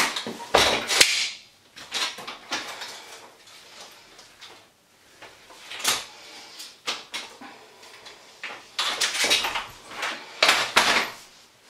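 Infababy Ultimo three-wheel pushchair frame being folded and handled: clicks, clunks and rattles from its folding joints, frame and wheels. The sharpest knocks come about a second in, again near six seconds, and in a cluster near the end.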